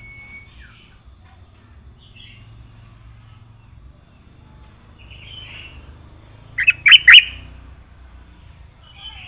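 Yellow-vented bulbul (trucukan) giving scattered short chirps, then a loud burst of three sharp notes about seven seconds in.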